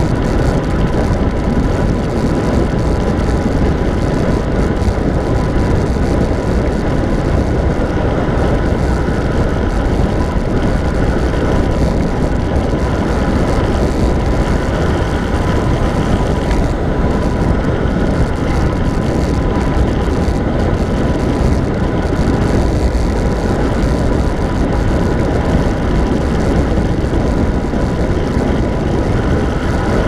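Steady, loud wind noise buffeting a handlebar-mounted camera's microphone as a road bike descends at speed, with a faint steady whine underneath.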